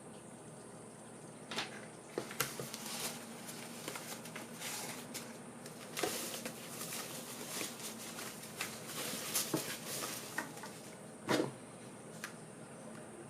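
Packaging and objects being handled during an unboxing: irregular rustles, clicks and light knocks, with one louder knock near the end.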